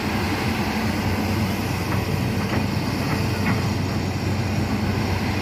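Hitachi Zaxis 210F amphibious excavator running steadily as it digs weeds out of a canal. A few faint knocks come about two to three and a half seconds in.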